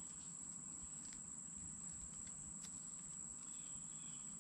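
Faint woodland ambience: a steady high-pitched insect drone, with a few short faint chirps near the end.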